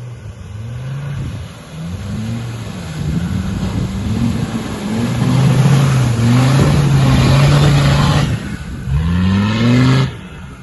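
An off-road SUV's engine revving again and again under load, its pitch rising and falling, loudest in the middle, with one last quick rev that cuts off sharply shortly before the end.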